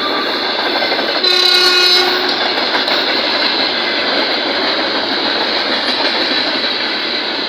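VL80S electric locomotive running on the rails, with a loud, dense wheel-knocking and rolling noise. About a second in, a train horn sounds once, lasting under a second.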